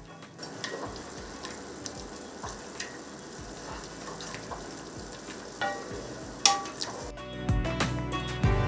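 Grated carrot, onion and ginger sizzling in olive oil in a granite-coated pot, stirred with a wooden spatula that clicks and scrapes against the pot. Guitar music comes in about seven seconds in.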